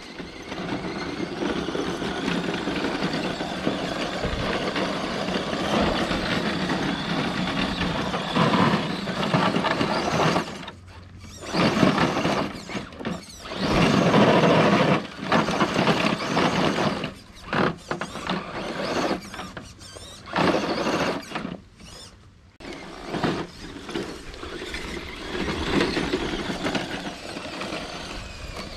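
Electric motor and gear drivetrain of an Element RC Enduro Trailwalker scale crawler whining under throttle as it drives over dirt and climbs a sandy bank. The whine stops briefly a few times as the throttle is let off, then comes back.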